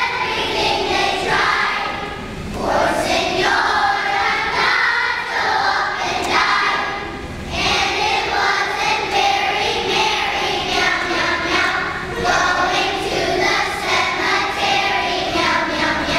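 Children's choir singing, in phrases of about five seconds with short breaks between them.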